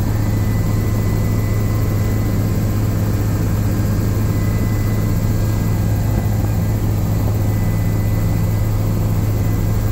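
Helicopter cabin noise in flight: a loud, steady low drone from the rotors and engine with a faint steady high whine over it, unchanging throughout.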